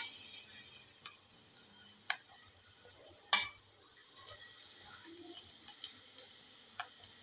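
Besan-battered brinjal slices sizzling in hot oil in a kadhai: a steady hiss with a few sharp clicks and pops, the loudest about three and a half seconds in.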